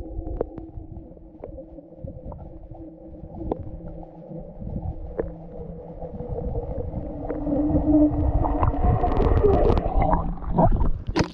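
Muffled underwater sound picked up by a waterproof camera lowered through an ice-fishing hole: a low rumble with a steady hum and scattered clicks. It grows louder and more churning in the last few seconds as the camera is moved, ending in a sharp knock.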